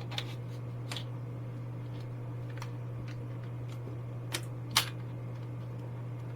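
A handful of short, sharp clicks and light knocks from hard parts being handled, the loudest about five seconds in, over a steady low hum.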